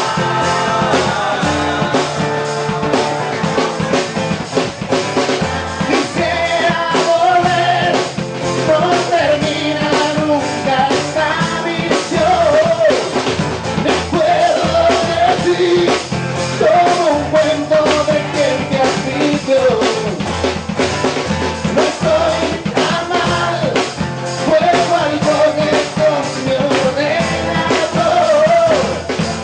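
Live band playing a song: a man singing lead over two guitars and a drum kit.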